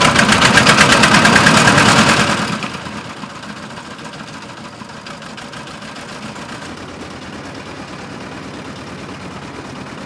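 Small engine of a long-tail river boat running loudly with a fast, even beat just after starting, then dropping back about two and a half seconds in to a quieter steady run.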